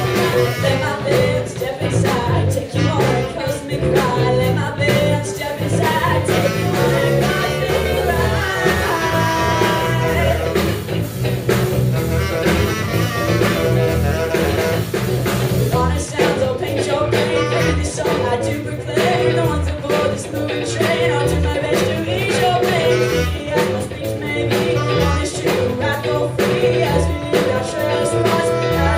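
Live band rehearsing a funk-rock song, with a Yanagisawa tenor saxophone among the instruments, over a steady drum beat; it plays continuously without a break.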